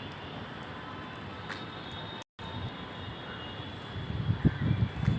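Steady hiss of light rain over a distant city rumble. About four seconds in, gusts of wind start buffeting the microphone in loud, uneven low thuds. The sound cuts out for a moment a little after two seconds.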